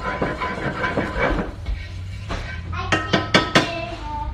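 A fork stirring butter into a pan sauce in a cast-iron skillet, scraping the pan off the heat so the butter melts in and emulsifies. Near the end come about five quick, ringing taps of the fork against the skillet.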